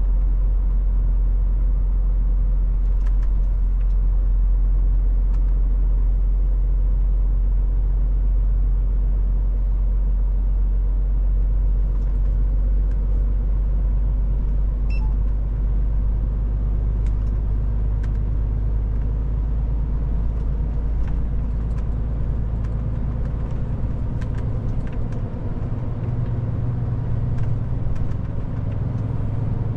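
Cab interior of a new Scania truck on the move: a steady low engine drone with road rumble. The engine note shifts in the last third.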